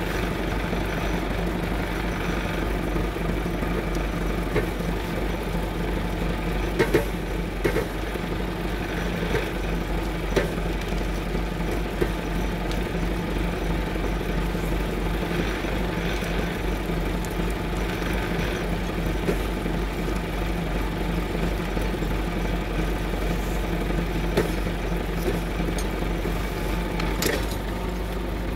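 Massey Ferguson 3070 tractor's diesel engine running steadily while its cable winch pulls down a dead ash tree, with a few sharp cracks of snapping wood.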